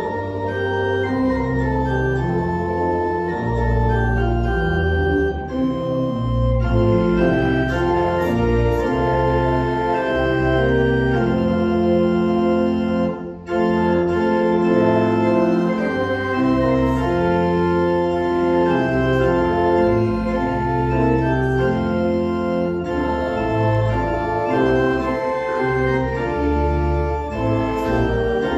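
Church organ playing a slow piece in sustained held chords over a moving bass line, with a brief break between phrases about thirteen seconds in.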